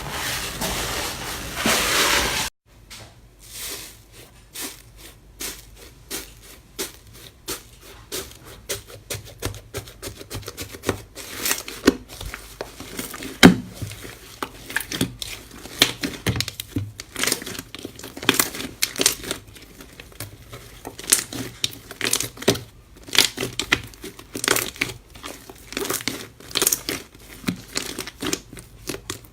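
A steady rushing noise that cuts off abruptly about two and a half seconds in, then slime being squeezed and poked by hand: a long, irregular run of small crackling clicks and pops.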